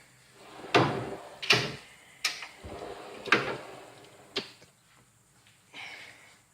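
Metal Snap-on toolbox drawers sliding shut and open on their runners, with about five sharp clunks spread over the first four and a half seconds.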